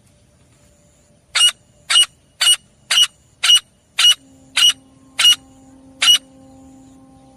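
Grey francolin calling: a run of about nine short, sharp, high-pitched notes, roughly two a second, with a faint steady hum under the later notes.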